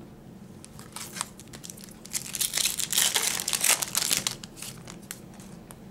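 Foil wrapper of a 2007 Upper Deck SP Legendary Cuts baseball card pack crinkling and tearing as it is ripped open by hand. It starts about a second in, is loudest in the middle, and dies down to a few scattered crackles.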